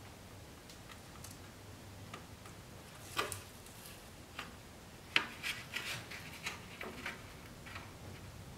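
Fingernails picking and scratching at the edge of the protective liner on a side skirt's double-sided 3M tape, trying to lift it: a few short scratchy rubs, one about three seconds in and a cluster from about five to seven seconds in.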